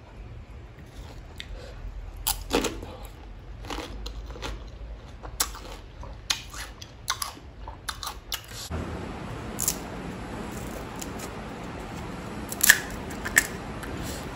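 Close-miked eating of pani puri: scattered sharp crunches and clicks as the crisp shells are bitten and chewed. About two-thirds of the way through, a steady hiss starts underneath, and the loudest crunches come near the end.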